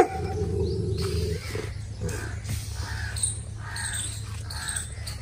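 Animal calls: one held, whine-like cry lasting about a second and a half, then a string of about five short, harsh calls spread over the next few seconds.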